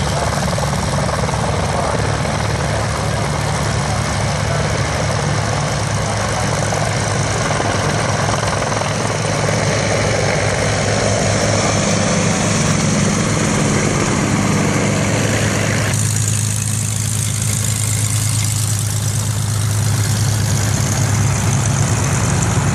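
Aircraft engines running steadily: propeller trainers' piston engines idling, mixed with military helicopters in flight. About two-thirds of the way through the sound changes abruptly to a close propeller trainer idling on the taxiway, with more hiss.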